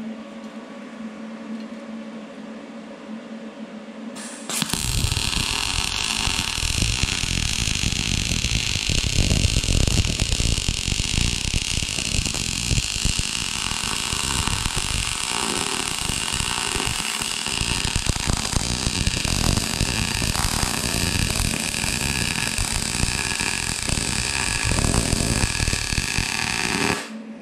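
MIG welding arc from a Vulcan OmniPro 220 on 110 V input, set at 20 volts with 0.035 in wire feeding at 220 inches a minute: a loud, steady crackling sizzle that strikes about four and a half seconds in and cuts off sharply near the end. Before the arc strikes there is only a low steady hum.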